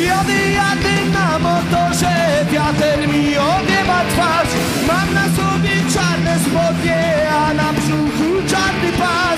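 Rock song with a lead singer over electric guitar, bass and drums.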